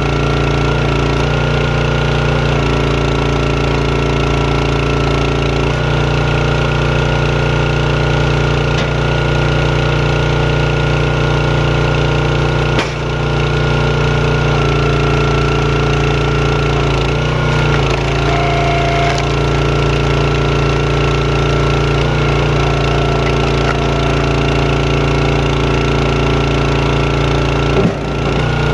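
Champion 27-ton hydraulic log splitter's gas engine running steadily, its note shifting a few times as the ram is cycled. A sharp knock about thirteen seconds in and another near the end.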